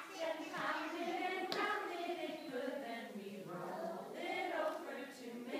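A class of young children singing a song together as a small choir.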